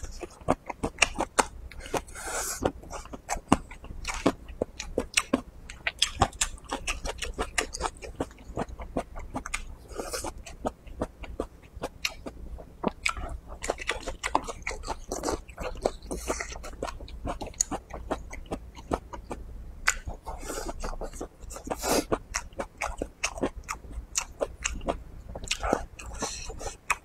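Close-miked eating: irregular wet chewing, lip smacks and crunching as braised pig's trotter, red pepper and sour long beans are bitten and chewed, with louder bites every few seconds.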